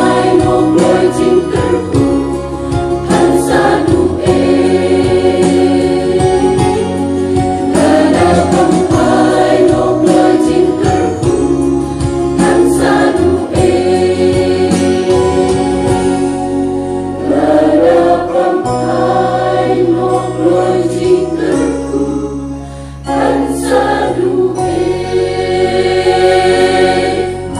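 Mixed choir of women's and men's voices singing a Khasi gospel song in harmony, over steady low bass notes.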